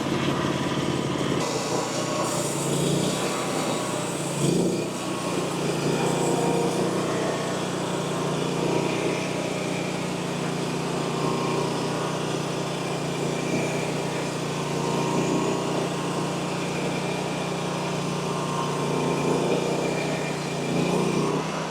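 Frontier OS35 portable bandsaw mill running steadily under load, its band blade sawing lengthwise through a tulip poplar cant to split it in two. The engine note shifts slightly about two seconds in and then holds steady.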